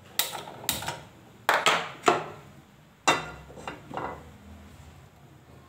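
A handheld spark gas lighter clicking at a gas stove burner, then an aluminium frying pan clanking down onto the burner's steel grate, in a series of sharp knocks with the loudest about three seconds in.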